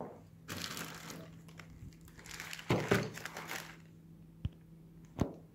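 Clear plastic bag crinkling as it is handled, in two bursts about a second long, followed by two light clicks near the end.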